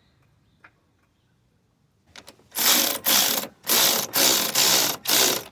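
Hand socket ratchet clicking in repeated strokes, about two a second, starting a couple of seconds in, as a 12mm bolt on a timing belt cover is run in.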